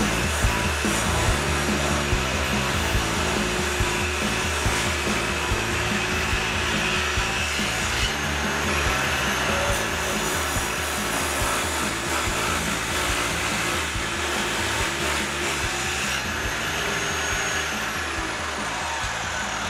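Table saw running steadily as small pieces of wood are fed through the blade, a continuous whirring noise. Near the end a faint whine falls in pitch.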